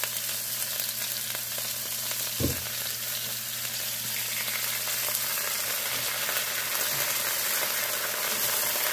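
Green beans and sliced onion frying in oil in a pan, sizzling steadily with Italian dressing just poured in. A single knock comes about two and a half seconds in.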